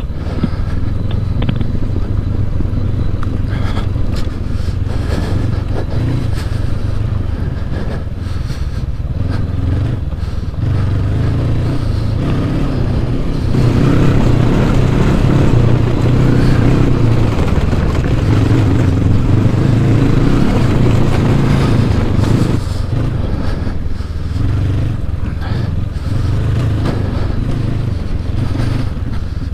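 Honda CB500X's 471 cc parallel-twin engine running while riding a dirt trail, the throttle rising and falling, with a louder stretch in the middle.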